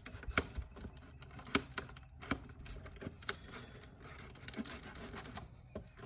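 Small plastic clicks and scrapes as fingers work at the wiring-harness connectors and plastic housing of a truck's overhead console, pushing down on the connector latches and pulling to unplug them. The clicks come at irregular intervals, about one a second, over a faint scraping.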